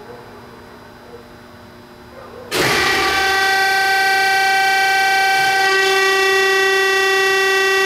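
Thompson 8CX surface grinder's motor starting up about two and a half seconds in, coming on suddenly and then running with a loud, steady, many-toned whine; before that only a faint hum.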